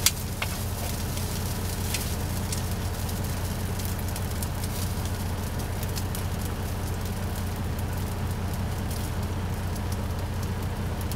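Chorizo sizzling in a frying pan, a fine crackle with scattered pops, over a steady low hum. A sharp click at the very start.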